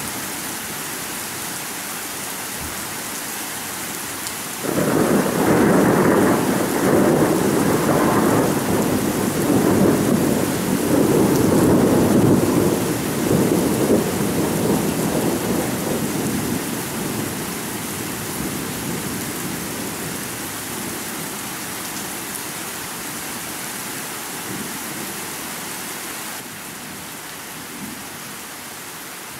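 Thunderstorm: steady rain hiss, then about five seconds in a loud peal of thunder breaks in and rumbles for around ten seconds before slowly dying away under the rain.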